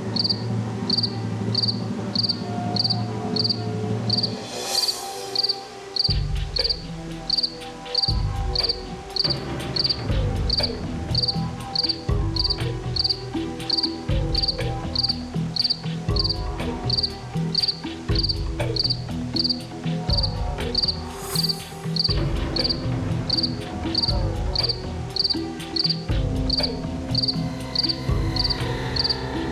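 Cricket chirping steadily, about two chirps a second, over a low rumbling drone that shifts every two seconds or so. A brief hiss sweeps through about five seconds in and again about twenty-one seconds in.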